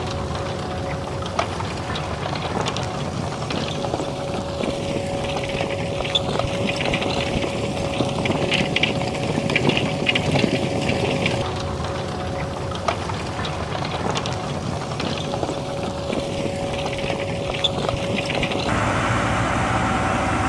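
Farm machinery running steadily, with a constant whine throughout; the sound changes abruptly near the end.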